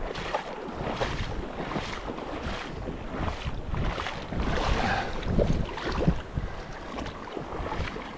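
River water rushing steadily, with wind buffeting the microphone in irregular gusts.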